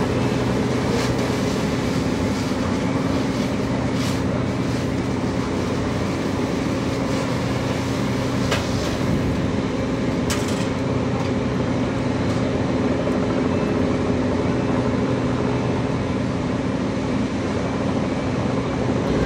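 Large diesel engine of a fire engine running steadily: a constant, unchanging drone with a few faint clicks over it.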